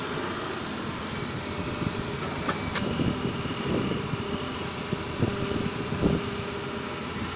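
Excavator's diesel engine running steadily, with a few low thumps from the machine working about halfway through and later.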